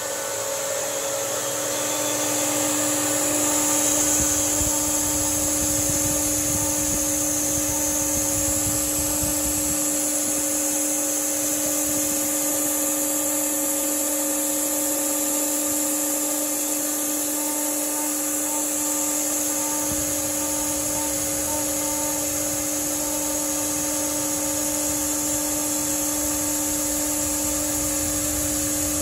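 Model 8 Executive CNC router's spindle running steadily with a high whine while its end mill cuts a profile in 20 mm aluminium plate.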